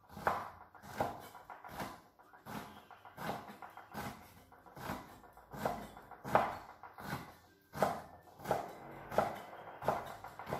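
Cooked wood ear mushroom being cut into strips by hand, a short sharp cutting stroke about every three-quarters of a second.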